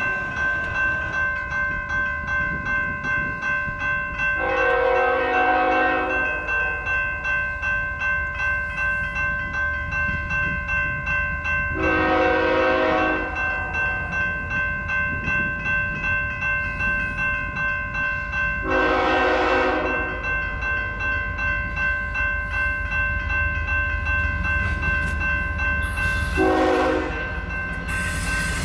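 Railroad grade-crossing bell ringing steadily at about two strokes a second, while an approaching BNSF ES44C4 locomotive blows its horn in four blasts about seven seconds apart. Near the end the train's own rumble grows loud as it reaches the crossing.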